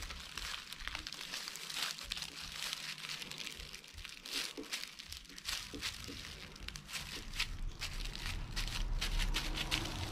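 Thin clear plastic bag and plastic glove crinkling in irregular crackles as ripe bananas are pressed flat by hand inside the bag.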